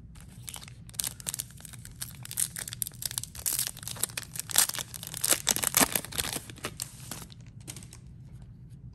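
Foil wrapper of a Topps 2021 Series 1 baseball card pack being torn open and crinkled by hand. It makes a dense run of crackling from about a second in until about seven seconds in.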